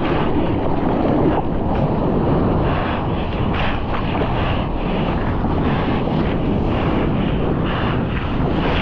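Wind buffeting the microphone over rushing water and surf: a dense, steady, loud noise with fast fluttering.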